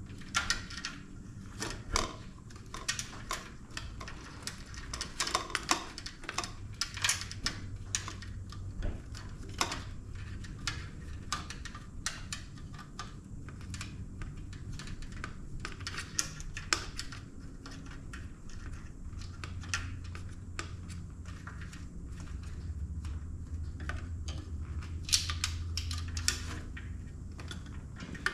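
Turn-signal wiring and its depinned connector terminals being handled and pulled through the motorcycle's rear fender: irregular light clicks, taps and rustles.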